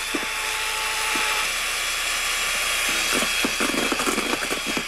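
Handheld electric mixer running steadily, its beaters whirring through egg yolks and sugar in a metal bowl. A patch of quick knocking comes in about three seconds in.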